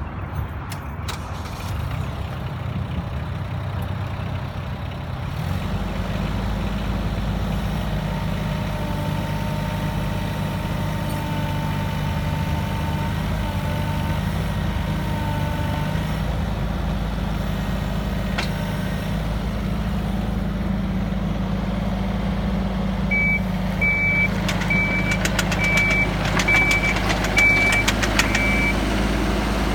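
Wacker Neuson EZ17 mini excavator's diesel engine running after start-up, its note stepping up and growing fuller about five seconds in as the revs rise. Near the end, a warning alarm beeps about seven times at an even pace, less than a second apart.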